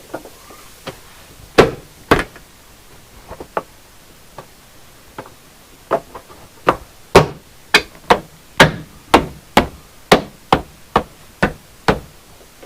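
Repeated sharp knocks, like parts being struck into place. A few come scattered at first, then a steady run of about two strikes a second from about six seconds in.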